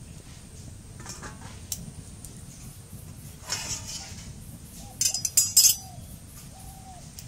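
Metal utensils clinking: a ladle knocking against a metal dish, a few single clinks and then a louder cluster of clinks about five seconds in. A bird gives short, repeated calls in the background.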